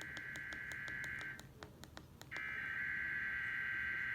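Emergency Alert System SAME header data bursts on a TV broadcast: a harsh, raspy digital warble. One burst ends about a second and a half in and, after a short break, the next starts just past the halfway point, marking the start of a monthly EAS test.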